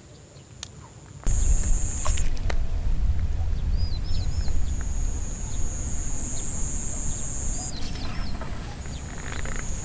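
Rumbling handling and wind noise while a crucian carp is fought on a rod, starting suddenly about a second in. A steady high whine breaks off and resumes twice, and a few short chirping calls come in small groups.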